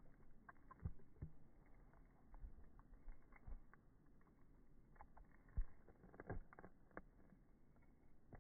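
Dog gnawing on a rawhide chew: faint, irregular clicks and soft thuds of teeth working on the hide, with a few sharper knocks about a second in and a little past halfway.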